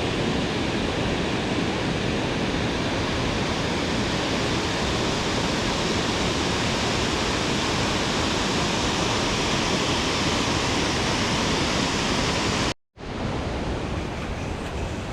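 Steady rush of water from a waterfall, a loud even roar. About 13 s in it cuts out completely for a moment and comes back a little quieter.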